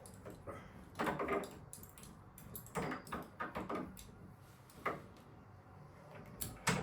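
Door handle and latch being worked on a repaired door, metal clicks and rattles coming in a few short bunches.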